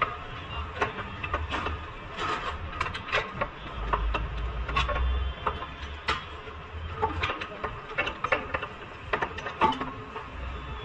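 Hand tools clicking and clanking on the car's front suspension hardware in irregular sharp knocks, with a low rumble swelling briefly midway.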